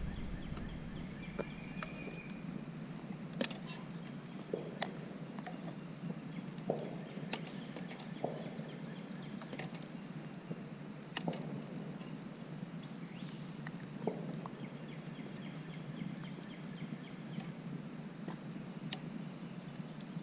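Wood campfire crackling, with sharp single pops at irregular intervals a second or several apart over a steady low background noise.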